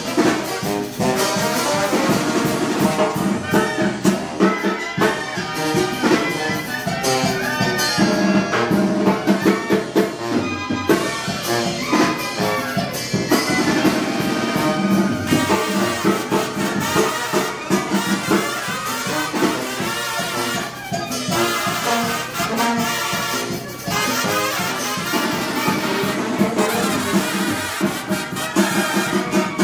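A brass band playing, with trumpets and trombones to the fore.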